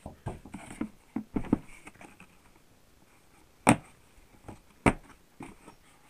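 Hard plastic tool carry case being handled and opened: light knocks and rustles, then two sharp snaps a little over a second apart, like its latches springing open.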